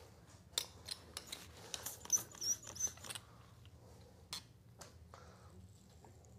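Faint scattered clicks and taps, thickest in the first half, with a brief high wavering squeak partway through: small handling noises.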